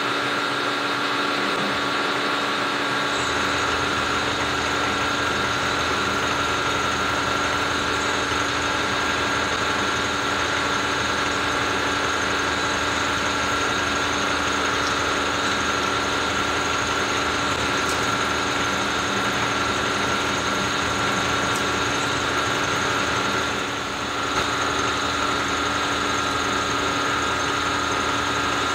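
Milling machine running steadily as an end mill takes a cleanup pass along a slot in a metal part under slow power feed, a steady whine over cutting noise. A lower hum joins about three seconds in, and the sound dips briefly near the end.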